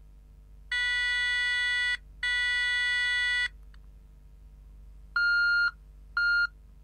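CAT B100 rugged feature phone's loudspeaker playing ringtone previews. First come two long, steady electronic beeps of about a second each. After a pause comes a different ringtone, two shorter, higher beeps.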